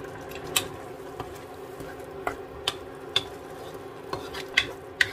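Wooden spatula stirring a simmering ground-meat and tomato-sauce filling in a wok, with about six sharp knocks and scrapes of the spatula against the pan over a steady low sizzle of the sauce.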